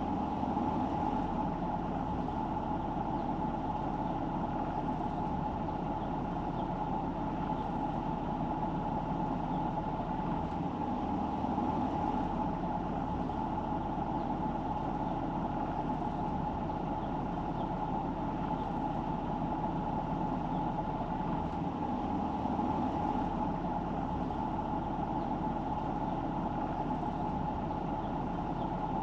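Steady engine and road noise of a car being driven, with a constant hum.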